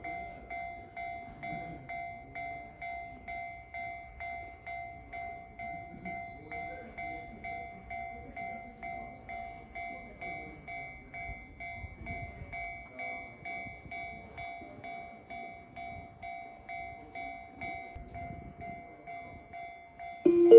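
Railway level-crossing alarm ringing steadily, an electronic two-tone ding repeating about twice a second, over a faint low rumble. Near the end a loud station chime starts.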